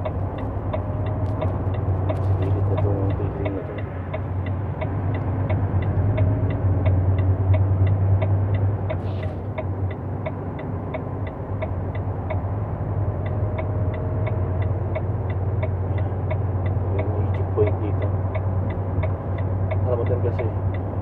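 Truck engine droning steadily with road noise, heard from inside the cab while driving at speed. A rapid, even ticking of about two to three ticks a second runs alongside it.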